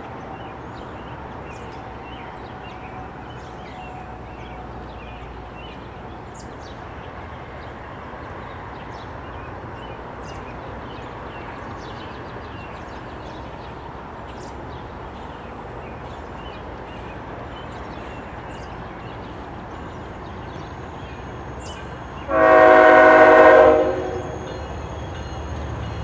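A low steady rumble, then near the end a single loud blast of a CSX ES44AH diesel locomotive's air horn, lasting about a second and a half.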